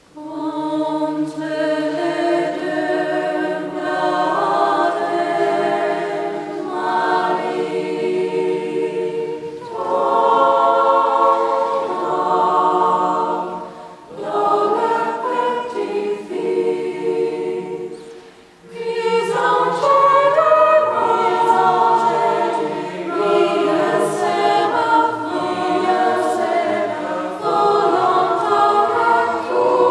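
Mixed choir of women's and men's voices singing in harmony. Singing starts at the very beginning, with short breaks between phrases about 14 and 18 seconds in.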